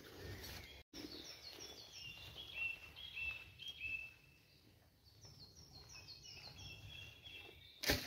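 Woodland songbird singing two phrases of quick notes that step down in pitch, over a low rustle. The sound cuts out for an instant about a second in, and a sharp knock comes near the end.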